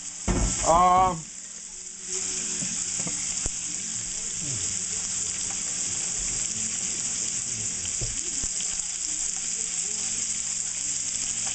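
Raw shrimp frying in butter and chili sesame oil in a nonstick pan: a steady sizzle that grows louder about two seconds in.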